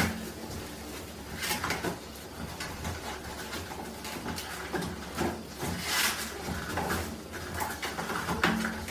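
Small dog tearing toilet paper off a wall-mounted roll: irregular rustling and ripping of paper as it tugs.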